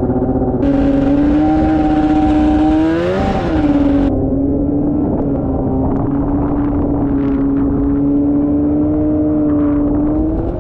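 Arctic Cat snowmobile engine, freshly started, running at a steady fast idle. About three seconds in it revs briefly, rising and falling in pitch, under a rush of noise that stops at about four seconds.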